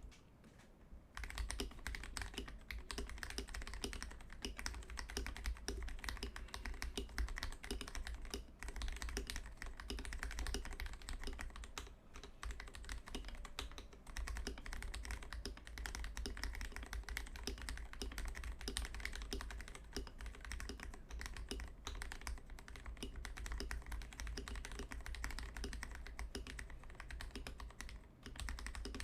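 Continuous fast typing on a Glorious GMMK Pro mechanical keyboard with a flex-cut brass plate, factory-lubed Gateron Cap Milky Yellow linear switches and XDA PBT keycaps: a dense, irregular stream of keystrokes that starts about a second in.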